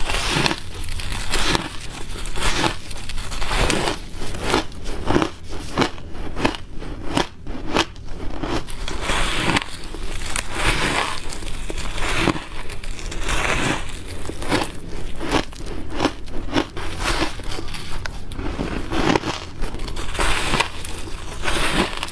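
Crunching of hard packed ice being bitten and chewed: a dense run of quick crackling crunches, mouthful after mouthful, with short dips between bites.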